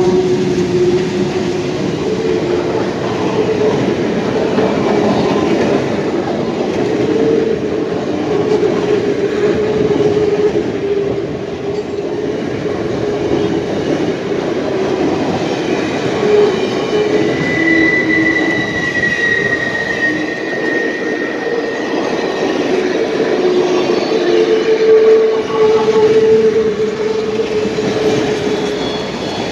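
Railroad passenger coaches rolling past close by, with a steady rumble of wheels on rail and the wheel flanges squealing on the curve in wavering tones. A higher, thin squeal rises over it for a few seconds past the middle.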